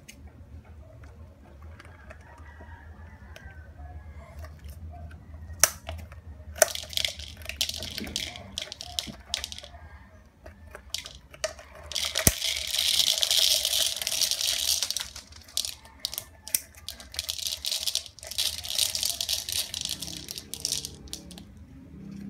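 Scissors cutting into the crackly painted shell of a yellow 'pop me' ball and hands crumpling it: scattered clicks, then crinkling and crunching. A sharp snap comes about halfway through, followed by several seconds of loud crackling.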